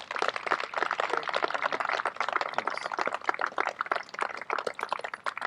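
Audience applauding: many hands clapping steadily, thinning out toward the end.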